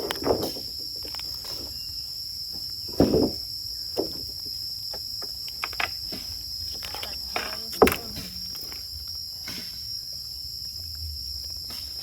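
Steady high-pitched insect chorus, with a scattering of short knocks and thumps, the loudest about three seconds in and just before eight seconds.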